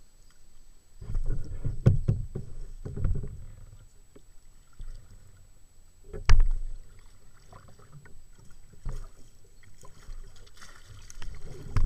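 Kayak paddle strokes in the water, coming in uneven bursts, with one sharp knock about six seconds in that is the loudest sound.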